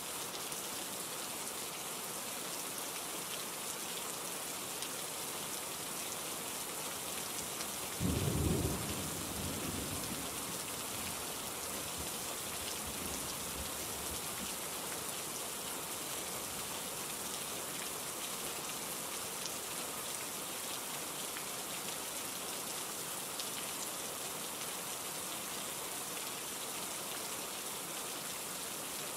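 Steady rain falling, with a single low rumble of thunder about eight seconds in that fades away over a couple of seconds.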